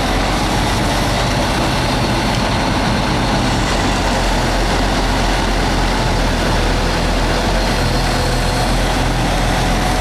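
A heavy machine's engine running steadily at a constant idle, with no change in speed.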